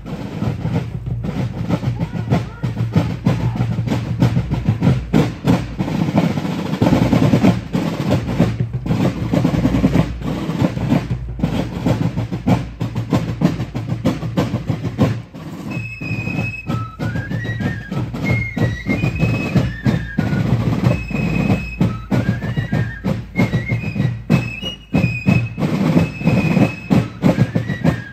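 Fife and drum corps playing: snare and bass drums beat a steady marching rhythm with rolls, and the fifes come in with a high melody a little past halfway.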